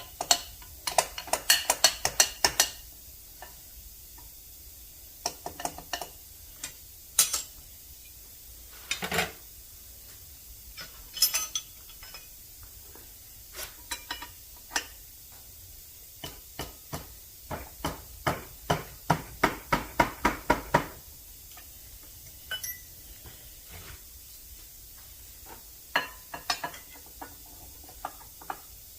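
Metal tools and parts being handled and set down in irregular clusters of sharp metallic clinks and clatters, with a quick run of clinks at about three a second in the second half. No machine is running.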